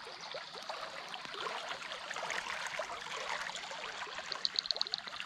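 Shallow creek water trickling and gurgling over a sandy, weedy bed, with a quick run of high, evenly spaced ticks near the end.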